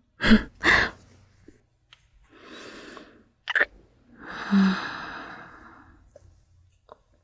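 A woman breathing and sighing close to the microphone: two short sharp mouth sounds near the start, a breath out, then a long sigh with a brief hum in it that trails off.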